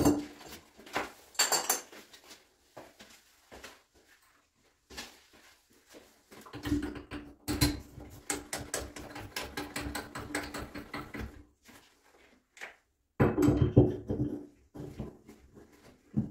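Gloved hands handling and fitting the metal parts of a lever tap set onto a shower tap body on a tiled wall. A few sharp clicks and knocks come at the start, then a long bout of rubbing and scraping in the middle and a shorter, louder one near the end.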